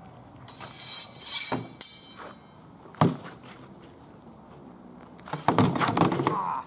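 Swords clashing against round shields and against each other in a sword-and-shield sparring bout. A clattering run of blows with some metallic ringing comes about half a second in, a single sharp knock about three seconds in, and a quick flurry of blows near the end.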